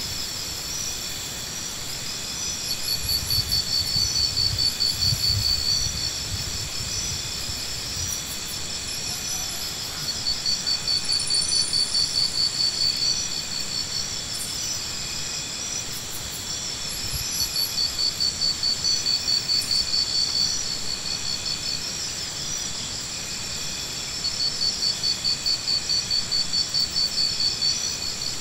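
Insects trilling in rapid pulsed phrases about three seconds long, repeating roughly every seven seconds over a steady high-pitched background tone.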